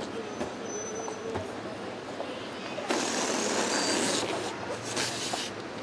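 Air hissing out of a latex party balloon as it is squeezed and deflated: a sudden loud hiss about three seconds in that lasts over a second, then fades. Street background noise runs underneath.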